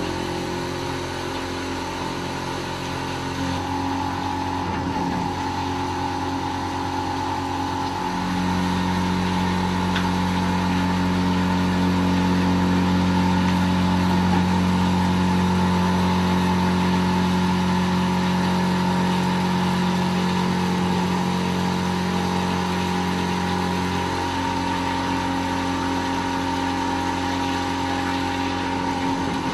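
Grundfos SEG sewage grinder pump running with a steady machine hum. A low hum in it grows louder about eight seconds in and eases back several seconds before the end.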